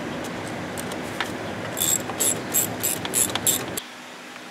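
Hand ratchet wrench worked in quick short strokes on a fastener beside the turbo, its pawl clicking in a burst on each swing, about four times a second for under two seconds. A steady noise runs underneath and cuts off suddenly near the end.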